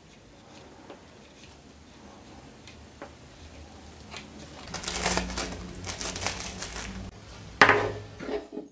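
Plastic bag crinkling as it is handled, with the steel washers inside it clinking, growing busier about halfway through; a louder short clatter comes near the end.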